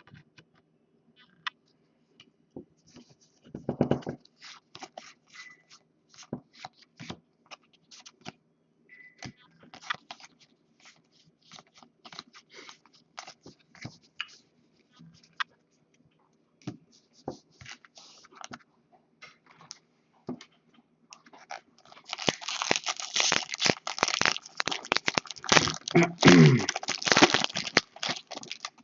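Trading cards being handled and flipped, with scattered soft clicks and rustles, then a few seconds of loud, dense crinkling of packaging, such as a foil card-pack wrapper or plastic sleeve, near the end.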